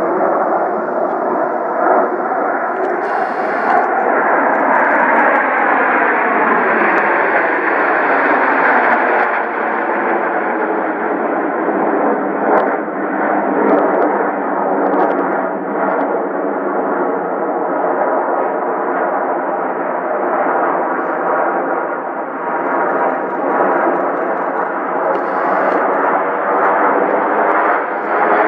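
Aircraft engine noise, loud and steady, with a slow sweeping, phasing quality in the tone as the aircraft moves past.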